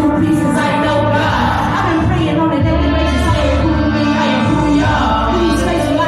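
Live band music with a strong bass line and a sung vocal over it.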